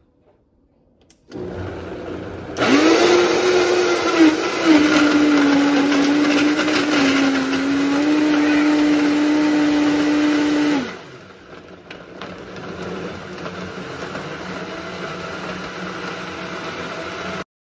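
Vitamix 5200 blender motor blending a thick load of frozen fruit and strawberries with no added liquid. It starts about a second in and jumps to top speed with a loud, steady whine that wavers briefly as the load catches. About ten seconds in it drops to a lower, quieter speed, then shuts off suddenly near the end.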